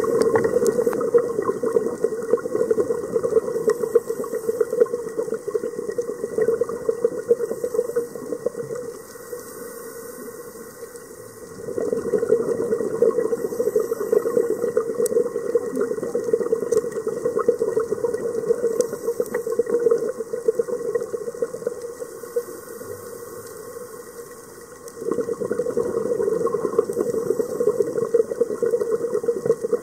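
Underwater sound of a scuba diver's regulator exhaust bubbles, heard through the camera housing as a steady bubbling hiss. It drops quieter twice for a few seconds between breaths, over a faint high crackle.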